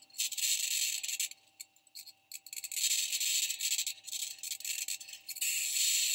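NASA Perseverance Mars rover's own microphone recording of it driving: rasping, rattling scrapes from its metal wheels and suspension rolling over rock. The scrapes come in uneven spurts of about a second, with short gaps, over a faint steady tone.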